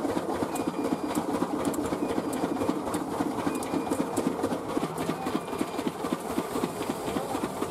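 Poha (flattened rice) making machine running, a fast, steady rattling clatter as the rice is pressed and the flakes are thrown out.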